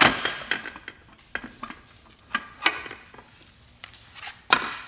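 Metal clanking and scraping as the top cover of a Mazda RX-7 FD transmission is twisted and lifted off the case: a string of irregular sharp knocks and rattles, loudest at the start and again near the end.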